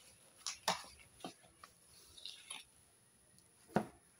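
A hand beating a soft mixture of ghee and powdered sugar against a stainless steel bowl: a few faint, irregular squelching and smearing strokes, the loudest near the end.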